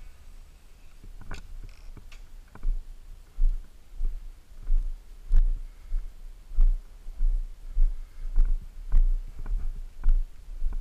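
Walking footsteps on a grass lawn, heard as dull low thumps from the carried camera, about one every 0.6 seconds, starting about two and a half seconds in.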